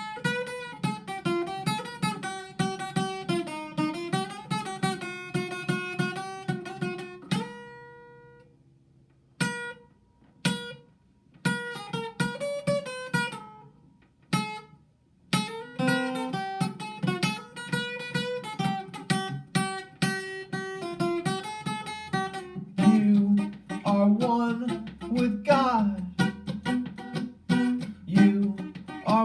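Acoustic guitar playing picked and strummed chords. The playing drops out twice in the middle, with a few single notes between, then resumes and grows fuller near the end.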